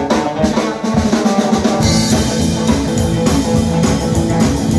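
Live band playing the instrumental intro of a song: a drum kit with bass drum and snare under guitar, with the low end filling out about two seconds in.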